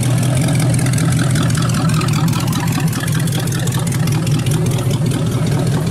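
Engines of Model A–style hot rods running at low speed as the cars creep past: a deep, steady exhaust rumble with a fast pulsing beat.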